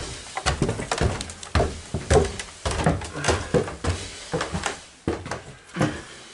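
Footsteps climbing a staircase: a steady series of heavy thumps on the treads.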